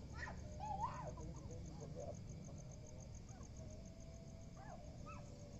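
Faint evening outdoor ambience: insects chirping in a fast, even, high-pitched pulse, with faint distant voices and a low rumble underneath.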